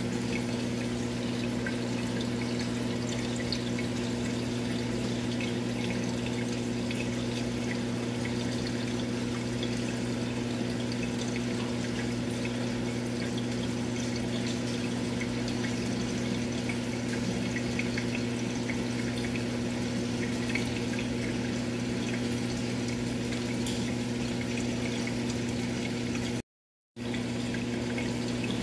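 Steady hum of an aquarium pump with water trickling. The sound cuts out for about half a second near the end.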